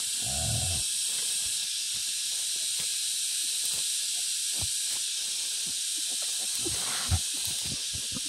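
A steady high hiss with a wild boar sow's short low grunt near the start, then scattered rustles and small knocks as the sow and piglets move on the leaf-littered ground, with one sharper knock near the end.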